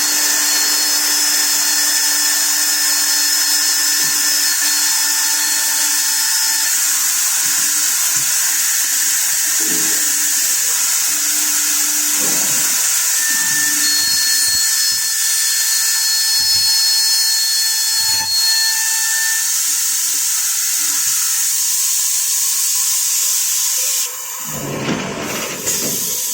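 Six-sided CNC drilling machine at work: a steady high hiss under the whine of its spindles, which comes and goes in long stretches. Near the end the hiss drops away and a short, lower rough noise comes in.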